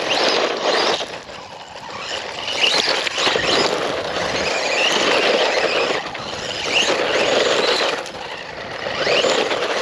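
HBX Destroyer RC truck spinning its wheels on gravel in repeated bursts of throttle, its electric motor giving a short rising whine with each burst over the crunch and spray of gravel.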